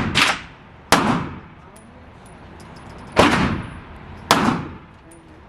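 Four single gunshots spaced unevenly: one at the very start, one about a second in, then two more around three and four seconds in. Each one trails off in an echo.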